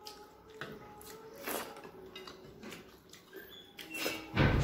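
Close-up eating sounds of rice and fish eaten by hand: scattered small clicks of chewing, lip-smacking and fingers working food on the plate. A louder thump comes near the end.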